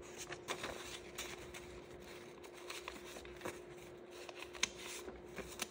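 Paper banknotes and a cash envelope being handled, with soft rustling and a few light clicks and taps spread through.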